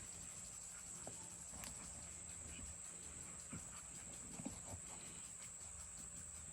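A dog playing with a toy: scattered soft taps and scuffs of paws and toy, the loudest about four and a half seconds in, over a faint steady high whine.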